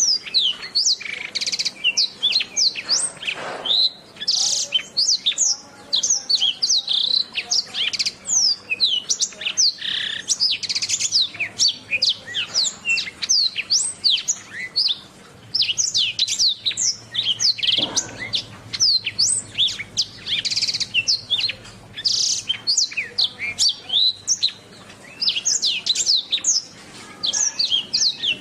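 Domestic canary singing a long, continuous song of rapid chirps, trills and quick sweeping whistled notes, with only brief pauses.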